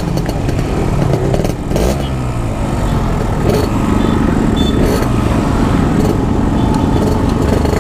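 Yamaha RX-King two-stroke motorcycle engine running under way, its revs dropping about a second and a half in and then climbing again.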